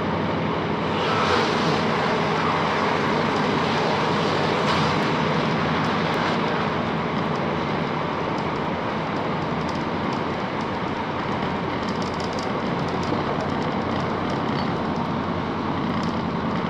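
Class 165 diesel multiple unit running between stations, heard from inside the carriage: a steady mix of underfloor diesel engine and wheel-on-rail noise, a little louder about a second in, with a few faint clicks near the end.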